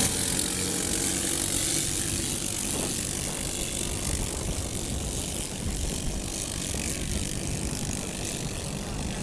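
Engines of racing longtail outrigger boats running flat out, a steady rattly drone under a strong even hiss.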